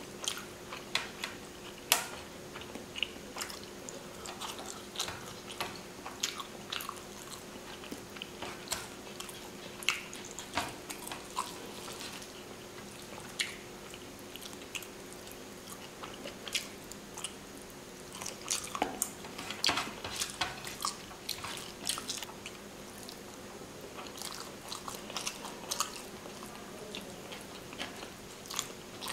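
Close-miked eating by hand: chewing, wet mouth clicks and smacks, and fingers working rice and fish curry on a steel plate, heard as many scattered sharp clicks. A faint steady hum runs underneath.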